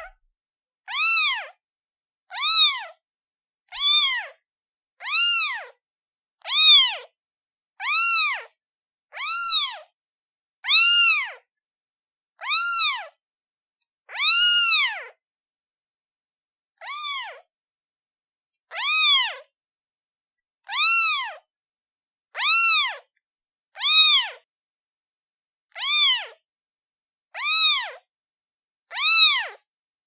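A day-old kitten meowing over and over, calling for its mother: short, high calls that rise and fall in pitch, about one every second and a half, with a longer pause about halfway through.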